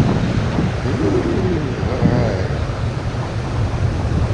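Wind buffeting the microphone over the wash of beach surf, a steady loud rumble. A couple of short wavering tones come through about a second and two seconds in.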